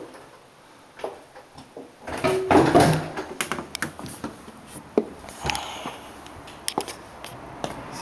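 A door being unlatched and opened, heard as a cluster of knocks and rubbing about two seconds in, followed by scattered clicks and footsteps.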